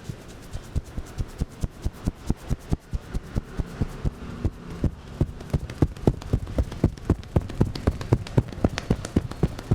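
Hands striking in quick percussive massage strokes (tapotement), an even run of slaps at about four to five a second that gets louder about halfway through.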